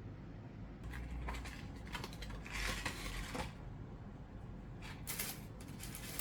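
Handling noise from charging cables and their packaging: scattered clicks and scrapes, with rustling around the middle and again near the end.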